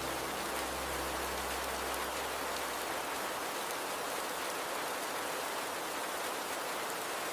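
Steady rain mixed with flowing river water, an even unbroken hiss.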